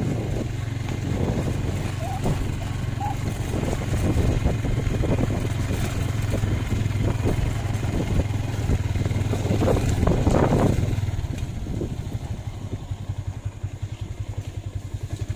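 An engine running steadily with some clatter. In the last few seconds it drops to a lower, evenly pulsing beat.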